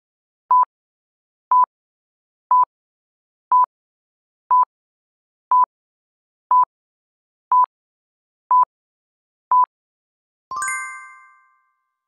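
Countdown timer beeping: ten short, plain electronic beeps, one a second, then a bell-like ding that rings out and fades over about a second, marking time up.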